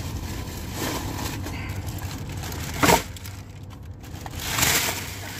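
Plastic grocery bags rustling and crinkling as they are handled and loaded, with one sharp knock about three seconds in, and a louder swell of rustling near the end.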